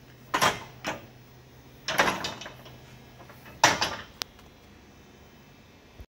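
Hand press driving a keyway broach through a sprocket's bore, so the broach teeth cut the keyway: four clunks spread over the first four seconds, then a sharp click.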